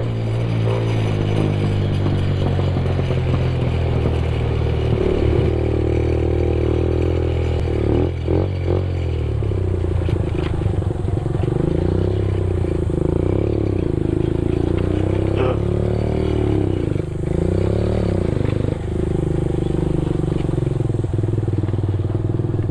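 Benelli TNT 15's 148cc air-cooled four-stroke engine running under way, its speed rising and falling several times. A few short knocks sound about eight seconds in and again near fifteen seconds.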